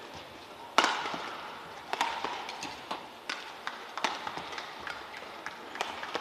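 Badminton rackets striking a shuttlecock in a rally: sharp cracking hits about once a second, alternating between the two players. The loudest comes about a second in and rings briefly in the hall.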